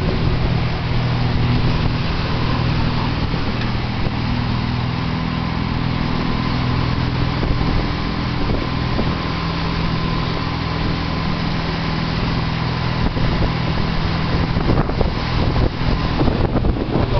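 Boat engine running steadily under way, over the rush of the churning wake and wind. In the last few seconds gusts buffet the microphone unevenly.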